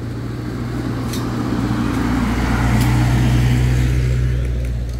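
A car driving close by: a steady engine hum with tyre noise on the road that swells to a peak about three seconds in, then eases off.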